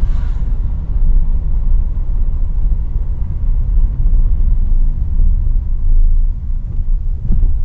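Car driving on a city street, heard from inside the cabin: a steady low rumble of road and engine noise.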